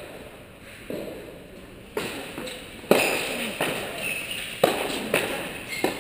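Tennis rally echoing in a large indoor hall: sharp racket strikes and ball bounces, about seven in six seconds, the loudest about three seconds in.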